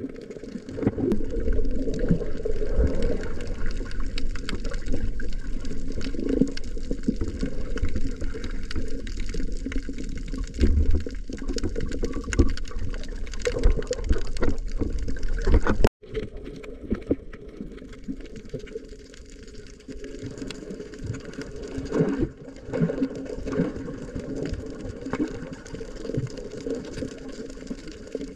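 Muffled underwater sound picked up by a submerged camera: a continuous low wash of water moving around the housing, with faint scattered ticks. It cuts off abruptly about halfway through and goes on quieter.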